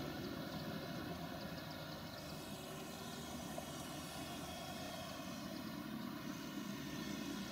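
Holmer Terra Variant 600 self-propelled slurry applicator driving across the field with its engine running steadily. The sound dips a little in the middle and grows louder again near the end.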